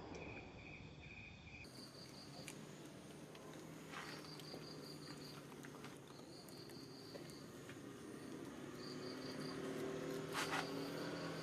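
Insects chirping in short, evenly pulsed high-pitched trains that repeat every second or two, with a few sudden rustling clicks and a low steady hum growing in the second half.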